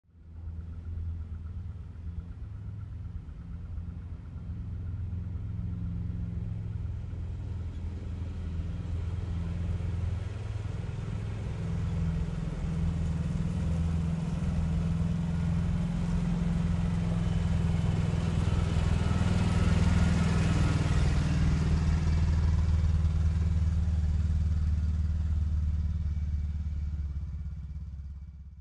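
ATV engines running steadily on a dirt trail. The sound grows gradually louder over the first two-thirds and eases off near the end.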